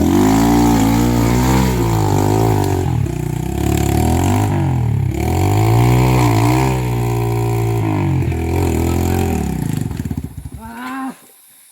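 Trail motorcycle engine revving up and down again and again, its pitch rising and falling as the rider works the throttle, then dying away near the end.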